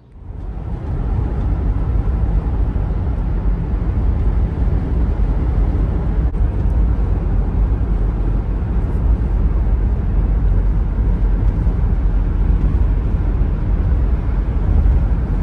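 Steady loud rumble and rushing noise of a moving vehicle, heaviest in the deep bass.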